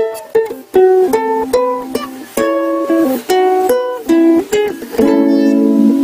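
Solo ukulele: a melody of single plucked notes, several a second, settling into a ringing chord near the end.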